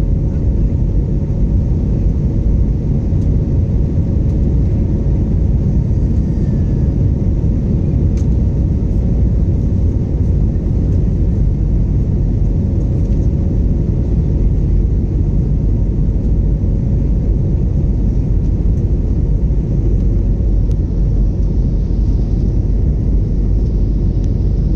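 Airbus A321neo in flight, a steady low rumble of engine and airflow heard from inside the cabin, with a faint steady hum.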